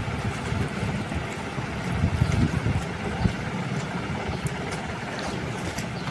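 Wind buffeting the microphone: a steady low rumble that swells and dips irregularly.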